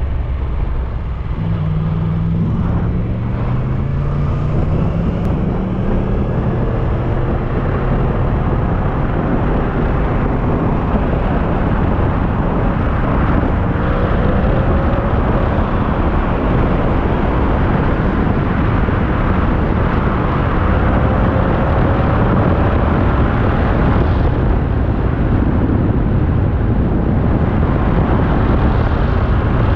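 Motorcycle engine accelerating, its pitch rising over the first few seconds, then cruising at road speed under heavy wind noise on the microphone.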